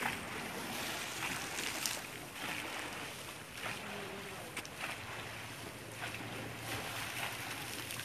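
Steady wind noise on the microphone over a broad river, with the rush of moving water and a few brief irregular sharper sounds.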